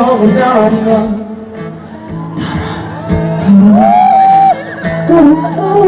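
A live song with a vocalist singing over guitar accompaniment. The music drops quieter about a second in, then a long held sung note comes around four seconds before the singing picks up again.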